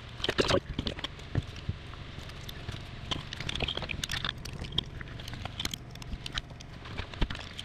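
Irregular light clicks and taps of hand tools and small metal parts being handled while refitting the intake flapper linkage and its spring, over a steady low hum.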